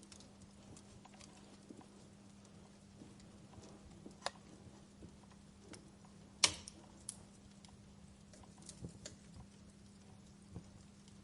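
Campfire crackling: sparse, irregular pops and snaps of burning wood, with one sharp pop about six and a half seconds in and another about four seconds in, over a faint steady hum.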